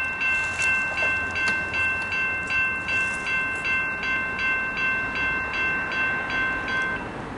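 Railroad crossing warning bell ringing in rapid, even strokes, about two and a half a second, while the crossing gates lower. It cuts off suddenly near the end as the gate arms come down.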